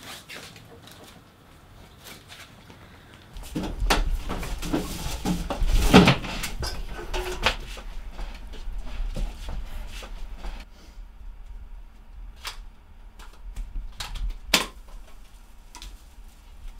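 Scattered knocks and clicks over a low rumble, with brief muffled voices about four to seven seconds in.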